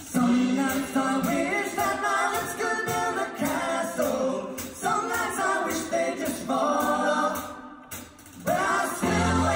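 A vocal group singing in harmony through stage microphones, in phrases with short breaks between them; stronger low notes come in near the end.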